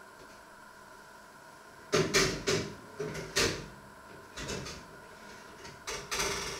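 A string of sharp knocks and clatters from kitchen cupboard doors and the things inside them being handled, with a denser rattle near the end.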